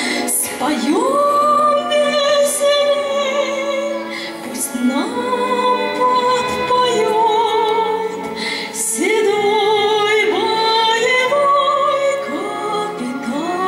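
A woman sings live into a handheld microphone over instrumental accompaniment. She holds long notes with vibrato, and each of the four phrases opens with an upward slide in pitch.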